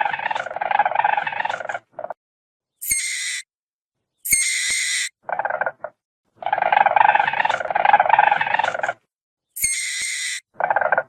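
Weasel vocalising in separate clips: fast rattling chatter in bursts of one to two and a half seconds, alternating with three short, high-pitched squeals, with dead silence between the clips.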